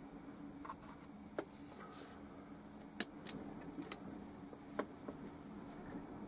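A few light clicks and taps from handling a paintbrush at the easel and palette, the sharpest about halfway through, over a low steady hum.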